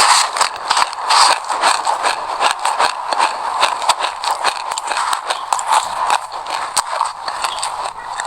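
Close-miked chewing of a mouthful of sesame seeds: a dense, continuous crackle of tiny crunches.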